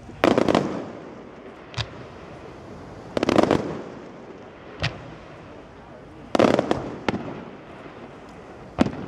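Aerial fireworks bursting: three loud crackling bursts about three seconds apart, with a single sharp bang between each of them.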